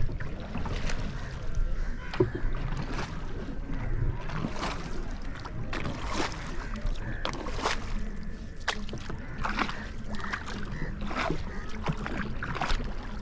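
Wooden rowboat being paddled across a lake, with frequent irregular splashes and knocks of the paddles over a steady low rumble.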